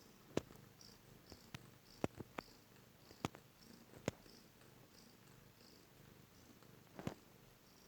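Heavily pregnant cat snoring softly in her sleep, a low steady rasp, with a handful of sharp clicks over it.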